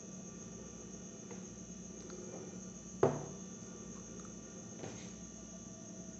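A single sharp knock about three seconds in, over a steady low hum and a faint steady high whine.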